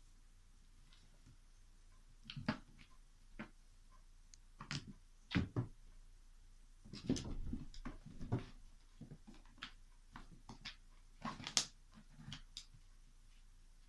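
A cat scrambling and pawing at a cardboard box: irregular knocks, scratches and rustles, coming in scattered clusters for about ten seconds.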